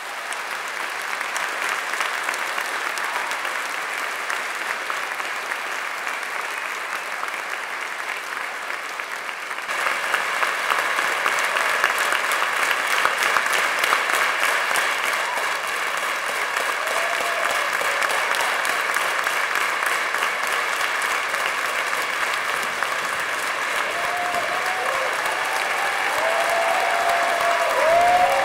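Large audience applauding steadily, with the clapping growing louder about ten seconds in.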